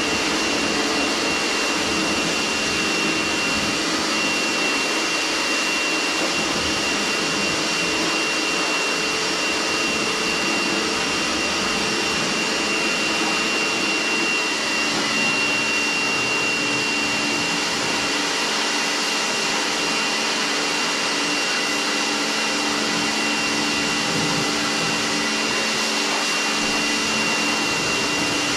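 Kärcher electric pressure washer running steadily, its motor and pump giving a constant drone with a thin high whine, as the water jet sprays.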